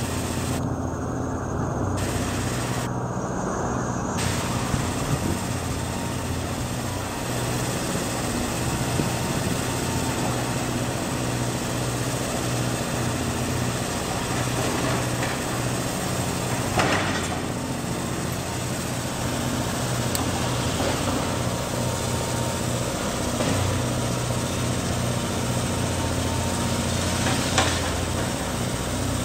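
Caterpillar 330D excavator's diesel engine running steadily as it tears into a building, with two sharp crashes of breaking masonry, one about halfway through and one near the end.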